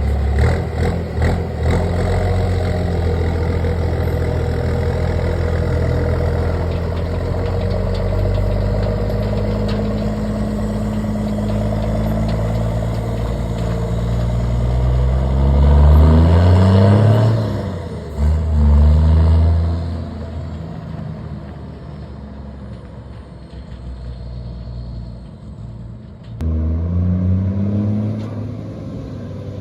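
Ford Cargo 2422 diesel truck engine with a straight-pipe exhaust and a comb fitted in the turbo. It runs steadily, then revs up and drops in pitch at each gear change: twice a little past the middle and once more near the end.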